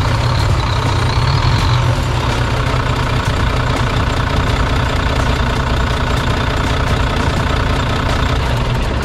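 Volvo D13 inline-six diesel engine idling steadily just after starting, running with the variable-geometry turbo's actuator unbolted while the mechanic checks why the engine chokes out.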